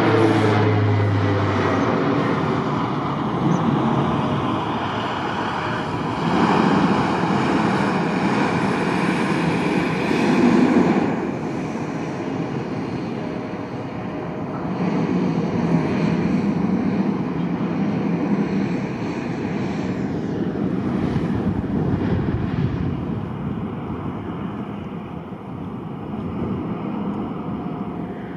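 Aircraft engines passing close by: a loud roar whose tones slide down in pitch as it goes past, then a long rumble that slowly fades.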